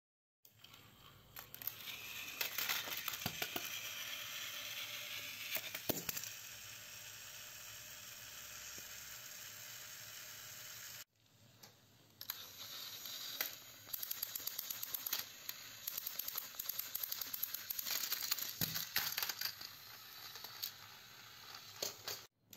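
Plastic toy trains being handled, with scattered small clicks and rattles of the engines against each other and the track. The sound breaks off briefly near the middle.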